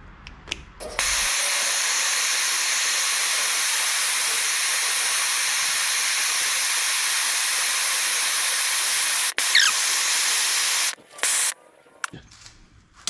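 MAPP gas torch burning with a steady hiss, its cylinder almost out of gas. The hiss drops out for an instant about nine seconds in and stops about eleven seconds in, followed by a few sharp clicks.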